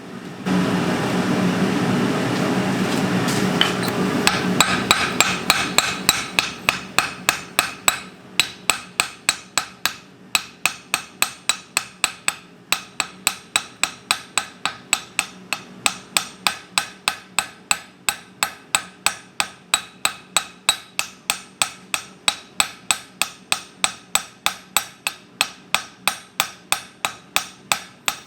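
Blacksmith's hand hammer striking hot steel on an anvil in a steady rhythm, close to three blows a second, while tapering a forged bar. For the first few seconds a loud rushing noise covers the start of the hammering, then fades away.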